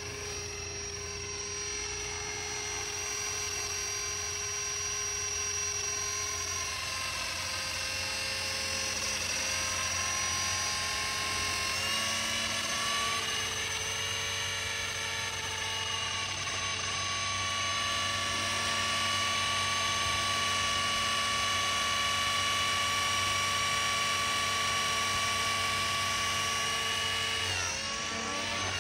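GAUI X3 electric RC helicopter running, its motor and rotor giving a steady, layered whine. The pitch dips and recovers a few times, notably about twelve seconds in and again near the end.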